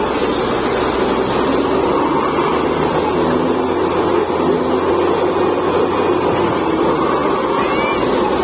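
Truck-mounted borewell drilling rig running steadily under load, its engine and air compressor driving the drill rod as it turns down into the hole. Near the end, compressed air blows dust and cuttings out of the borehole.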